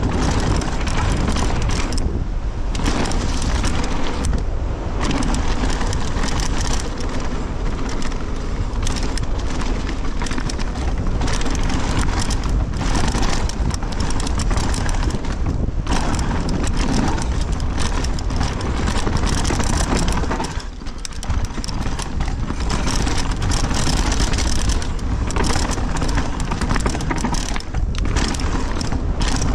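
Mountain bike riding fast down a dirt trail strewn with dry leaves: constant wind buffeting on the microphone mixed with tyre noise and the rattling clatter of the bike over bumps. It briefly goes quieter about two-thirds of the way through.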